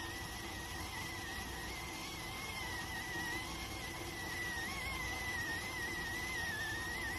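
Electric rice cooker venting steam: a steady high whistle that wavers slightly in pitch, over a soft hiss.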